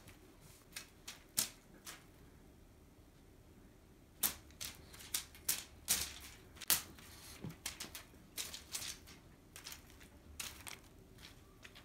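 A cat pouncing and scrambling after a feather wand toy on a quilted bedspread: irregular sharp taps and rustles of paws and claws on the fabric, coming in quick clusters.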